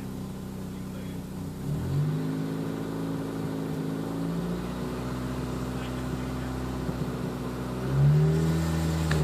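Renault Clio engine heard from inside the cabin, idling and then revved up about two seconds in and held at raised revs, with a second, stronger rev near the end that drops back. The owner is revving it to show an unfamiliar noise he describes as a purring.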